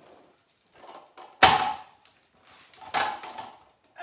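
Two sharp knocks, about a second and a half apart with the first the louder, of a plastic hand-crank rotary grater being set down and shifted on a wooden cutting board, with a few faint clicks between.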